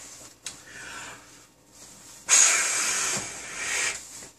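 A 260 twisting balloon being inflated: a short faint rush of air about half a second in, then a louder one that lasts about a second and a half.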